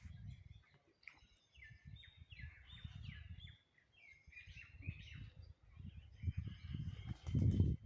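Birds chirping in quick runs of short, falling notes, over a low rumbling noise that grows louder near the end.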